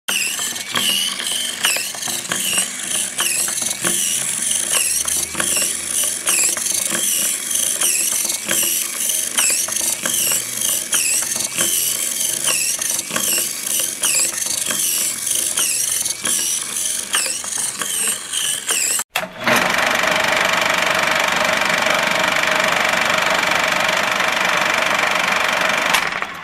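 Small electric gear motors of a homemade robot ATV running, a squeaky whine that rises and falls over and over above a clatter of clicks. About 19 seconds in it stops and gives way to steady TV-static hiss with a faint held tone.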